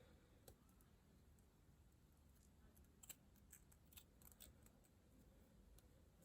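Near silence with faint, scattered scissor snips, most of them between about three and four and a half seconds in.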